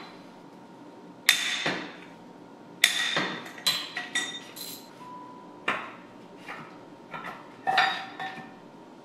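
Steel tools and parts clanking and clinking as they are handled and set down, about a dozen sharp metal knocks, some with a brief ring after them.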